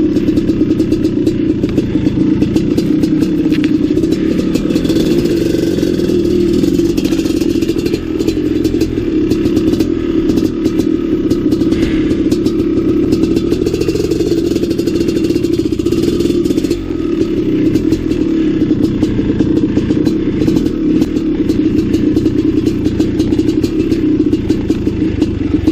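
Maico 700's big single-cylinder two-stroke engine running at low, fairly steady revs as the dirt bike is ridden slowly along singletrack, with a couple of brief dips in the throttle.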